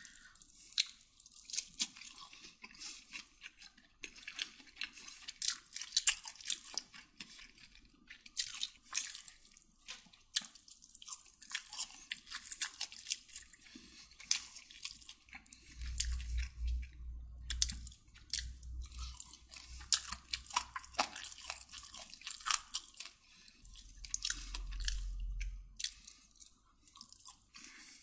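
A person chewing and eating close to the microphone: a dense run of quick wet mouth clicks and smacks, with a low rumble twice, a little past halfway and again near the end.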